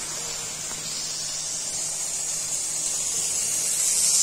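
Sliced ivy gourd sizzling in a frying pan over a low flame as its water cooks off: a steady hiss that grows a little louder near the end.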